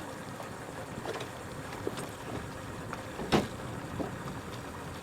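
Steady noise of a motorboat on the water, with a few short knocks, the loudest about three seconds in.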